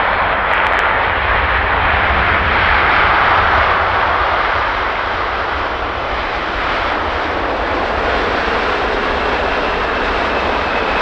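Boeing 787-9 Dreamliner arriving to land, its twin jet engines making a steady rushing noise that swells slightly about three seconds in and then eases a little.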